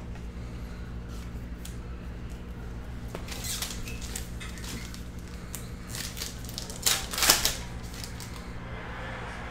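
Trading cards handled on a table, then a foil trading-card pack crinkled and torn open, with the loudest crackle of tearing wrapper a little after the middle. A steady low hum runs underneath.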